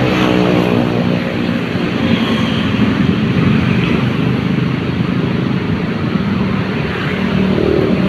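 Large coach bus's diesel engine running with a steady low drone as the bus moves off.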